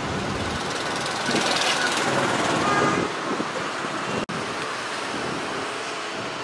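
Steady road traffic noise, growing louder for a couple of seconds about a second in, with a sudden brief dropout a little past four seconds.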